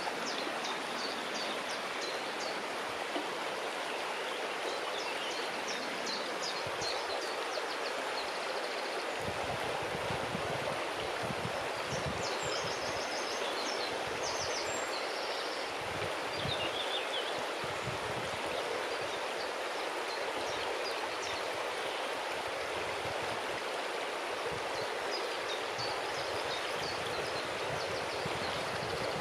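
River water rushing steadily around stones, with small birds chirping in short high runs now and then. Low rumbling comes and goes in the middle.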